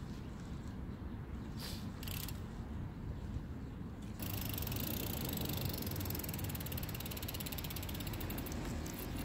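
Mountain bike rear-hub freewheel ticking as the wheel turns without pedalling: a few scattered clicks at first, then a fast, even ticking that sets in louder about four seconds in.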